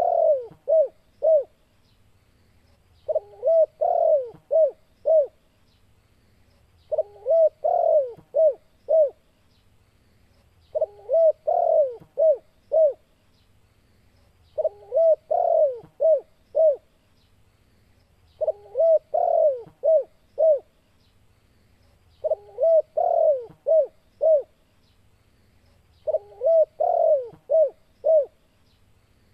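Spotted dove (tekukur) calling in its 'kuk 2' style. A cooing phrase ends in a few short, clipped coos and repeats steadily about every four seconds.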